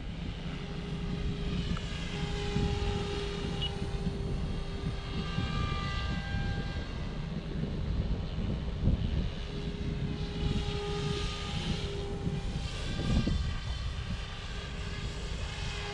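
OMPHOBBY M4 Max electric RC helicopter flying at its second headspeed (75% throttle): a steady whine from its motor and rotors that swells and fades as it moves about, over a low rumble.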